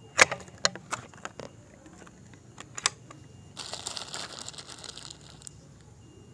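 Sharp Tiger multi-pump air rifle being handled: a quick run of sharp clicks and clacks from the pump lever and action in the first second and a half, two more near three seconds in, then about two seconds of crinkly rustling as pellets are picked out of a plastic wrapper.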